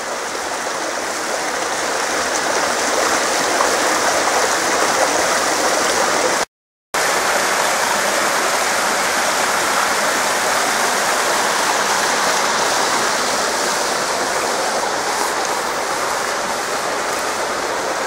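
Small mountain waterfall splashing into a rocky stream, an even rushing hiss of falling water. It cuts out completely for a moment about six and a half seconds in.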